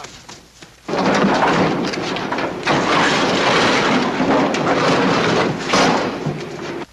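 Army cargo truck's engine running loudly as a steady, noisy drone that comes in suddenly about a second in and cuts off abruptly near the end.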